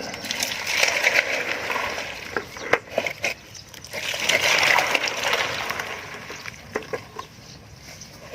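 Wet concrete being worked with a tool: two spells of scraping and sloshing, with scattered sharp knocks between them.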